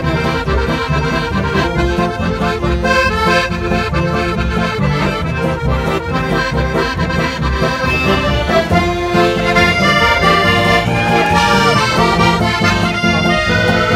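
Two piano accordions playing a lively traditional folk tune together, over a steady pulse of low bass notes from a tuba.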